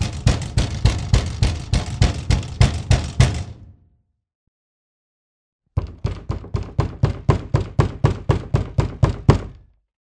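Rapid, repeated banging on a hard object, about five blows a second, in two runs of three to four seconds each with a pause of about two seconds between them.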